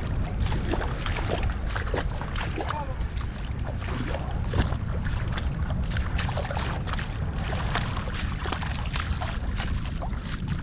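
Vehicle stuck in about a foot of water over deep wet sand: a steady low engine rumble with water splashing and sloshing in short, irregular splashes.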